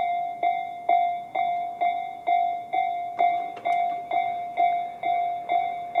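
Electronic level-crossing warning bell (Tobu 'sound C' type) ringing, a little over two bell-like strikes a second, each fading quickly: the crossing's alarm warning of an approaching train.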